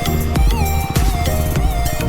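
Background music: an electronic track with a steady drum beat, heavy bass and a gliding synth melody.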